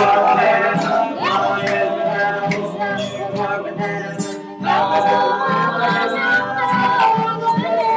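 A group of teenage voices, boys and girls, singing together to a strummed acoustic guitar, with a brief lull about four and a half seconds in before the singing picks up again.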